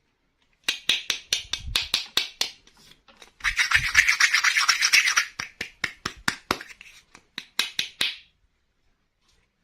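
Plastic toy packaging being handled and rustled, with many sharp crackles and clicks and a denser stretch of rustling about halfway through, stopping about a second before the end.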